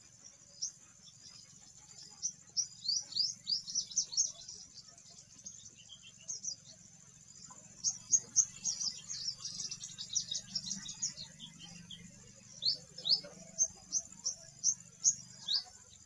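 Sunbird singing: runs of short, high, quick chirps, each sliding downward in pitch. It sings in three bursts, with pauses between them. A steady high insect hiss runs beneath.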